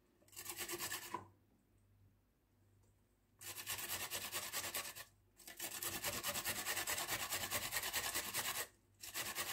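Cucumber rubbed up and down the coarse side of a stainless steel box grater: quick rasping strokes, about six a second, in runs of a few seconds. The first short run stops about a second in for a two-second pause, and the later runs break off only briefly.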